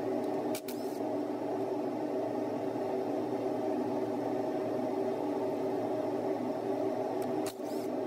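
Heater running with a steady hum of several even tones.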